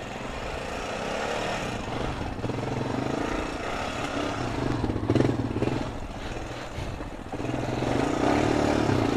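Honda ATV engine running and revving up in surges, the strongest about five seconds in and another rising near the end.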